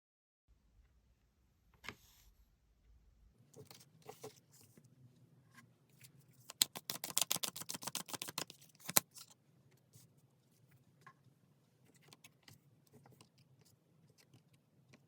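Tarot cards being handled and shuffled: scattered light clicks and rustles, then a run of rapid card clicks for about two seconds midway.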